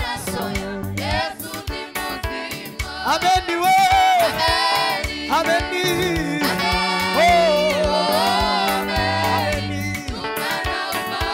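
Gospel choir singing through microphones, a lead voice over the group, with keyboard accompaniment holding steady low bass notes.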